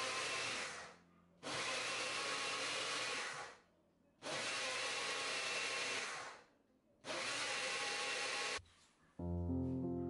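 Vitantonio personal blender motor running in four pulses of about two seconds each, starting sharply and winding down between them, blending fruit into a smoothie.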